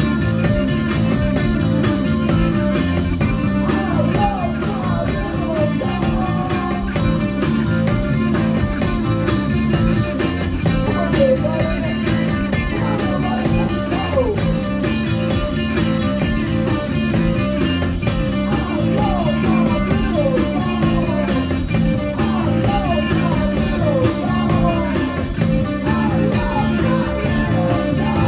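Grunge band playing live: distorted electric guitars, bass and drum kit at full volume, with a singer's vocals over them.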